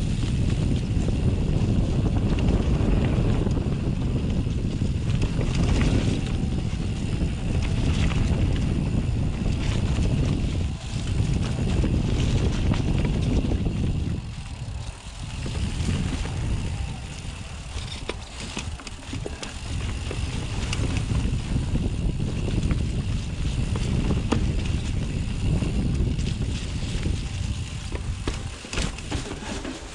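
Wind and motion rumble on the microphone while moving, with scattered clicks and rattles; it eases off for a moment about fourteen seconds in.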